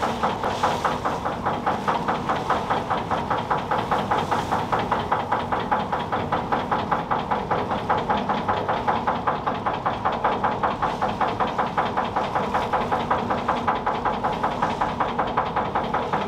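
Torpoint Ferry, a chain ferry, running under way: steady machinery noise with an even rhythmic clatter of about four to five knocks a second.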